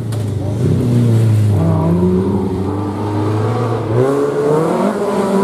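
Rally car engine running: its note holds steady for about four seconds, then rises and falls as it is revved.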